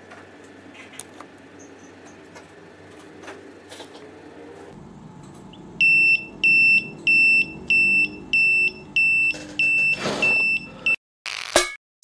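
Small active buzzer of a homemade fire alarm beeping in short, loud pulses of one high tone, about two a second, starting about six seconds in: the fluorescent-starter bimetal sensor, heated by a candle flame, has closed the circuit and set off the alarm. A brief rush of noise comes near the end.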